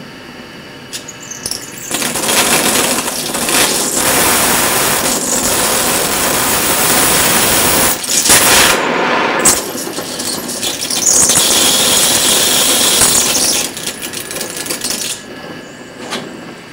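Oxyacetylene torch flame hissing loudly. It comes in about two seconds in, drops away briefly near the middle, and cuts off near the end.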